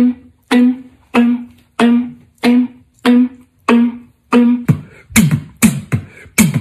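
Beatboxers making a melody with their mouths: one plucked-string-like note repeated about every 0.6 s. About three-quarters of the way through it switches to a beatboxed beat of deep strokes that drop in pitch, about two a second.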